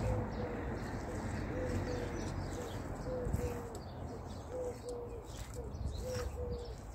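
A pigeon cooing over and over, a short note followed by two longer ones in a steady repeating rhythm, with faint small-bird chirps and a low background rumble.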